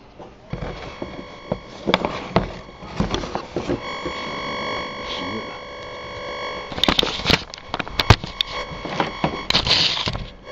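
Rewound brushless motor and its speed controller giving a steady electronic whine at several pitches, strongest for a few seconds mid-way. Knocks and rattles from the motor and its wires being handled come on top, loudest and most frequent near the end.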